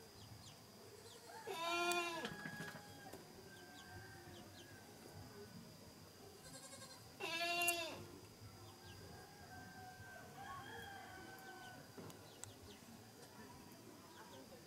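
A goat bleating twice, once about two seconds in and again some six seconds later, each a short call under a second long on a fairly steady pitch.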